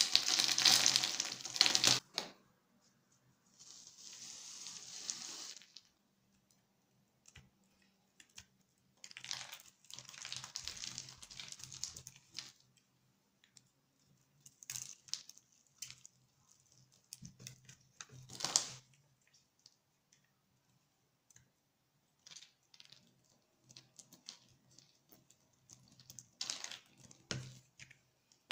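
Tiny cubes of grid-cut soap crackling and clicking as a utility knife blade scrapes them off a scored soap block, the loose cubes pattering onto the pile. The first two seconds are the loudest: a dense rush as a handful of soap cubes falls through the fingers.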